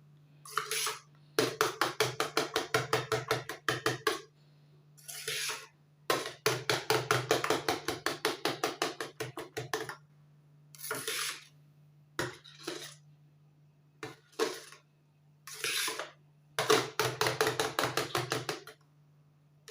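A utensil stirring briskly in a bowl of conditioner mixture, clinking against the side about five times a second. The stirring comes in runs of a few seconds with short pauses, and is worked hard to keep the thickener from forming lumps. A steady low hum runs underneath.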